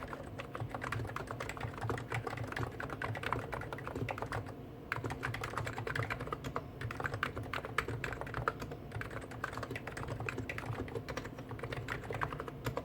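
Two Hansung GTune electrostatic capacitive keyboards typed at the same time: a CHF4 Snow White with stock 50 g switches and a CHF7 Office Master with stock 55 g switches. The keystrokes make a dense, fast clatter with a short pause about four and a half seconds in, and stop near the end.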